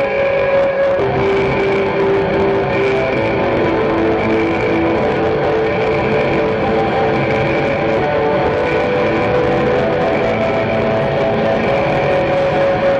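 Live band music with no vocals: a dense electric guitar sound under a keytar synth line of short repeated notes.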